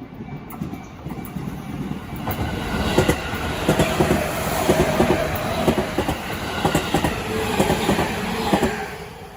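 A train passing, its wheels clacking over the rail joints. It grows loud about two seconds in and fades near the end.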